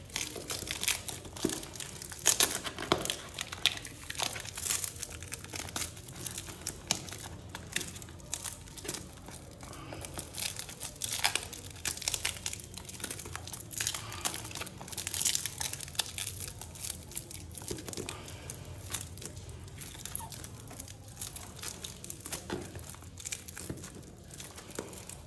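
Clear plastic shrink-wrap crinkling and tearing as it is peeled off a small cardboard box, in irregular crackles and rustles.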